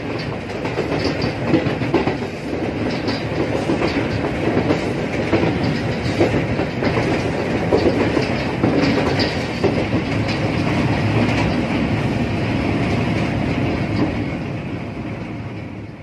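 Express train running at speed, its wheels clattering over rail joints and points in a steady rattle and rumble, heard from the rear of the train. The sound dies away at the very end.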